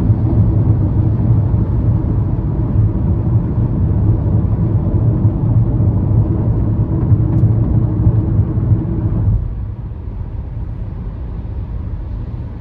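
Car running, heard from inside the cabin: a steady low noise that drops noticeably about nine seconds in.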